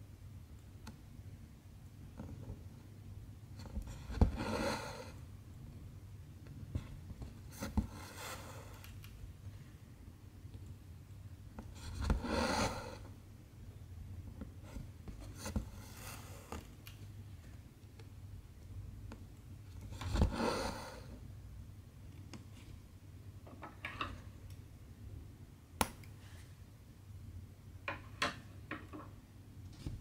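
Cross-stitching: a needle pierces 11-count cross-stitch fabric and silk thread is pulled through it. Each stitch gives a sharp tick followed by a short rasping swish, several times at irregular intervals, with fainter clicks and rustles in between.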